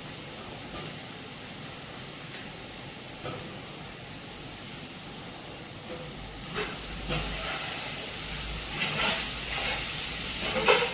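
Steady hiss of food cooking in a pot on the stove for mutton biryani, with a few short knocks and clinks from about six seconds in.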